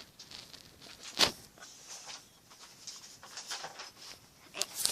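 Handling noise: one sharp tap about a second in, then soft rustling and a few small clicks near the end.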